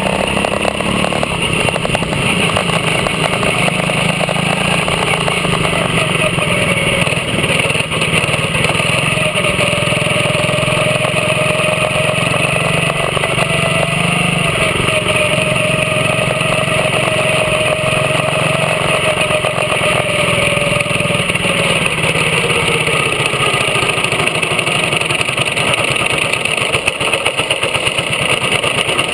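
A quarter midget's small single-cylinder engine runs loudly close to the onboard camera, a steady drone while the car circles the track. It eases off and turns uneven in the last few seconds as the car slows.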